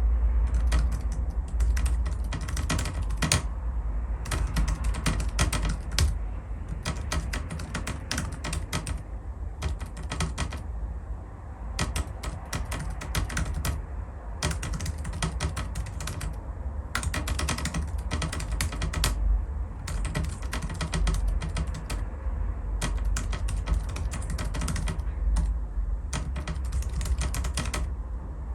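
Fast, steady typing on a Rapoo 9000M compact wireless mobile keyboard: dense runs of key clicks with brief pauses between bursts.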